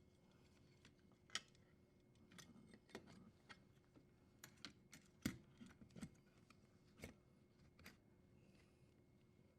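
Light, irregular clicks and taps of parts and tools being handled on a dishwasher during a repair, about a dozen, the loudest a little past the middle.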